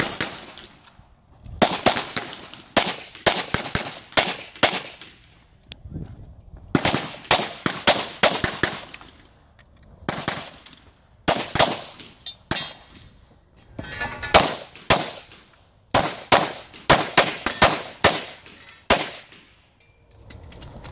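Semi-automatic pistol fired in quick strings of a few shots at a time, the strings separated by pauses of one to two seconds, during a timed USPSA practical shooting stage.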